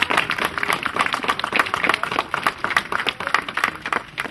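A small crowd applauding with hand claps, the clapping dying away near the end.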